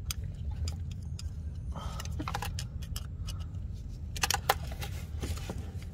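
Light metallic clicks and scrapes of a steel pick working in a crankshaft position sensor bore to dig out the old O-ring, loudest a little past the midpoint, over a steady low hum.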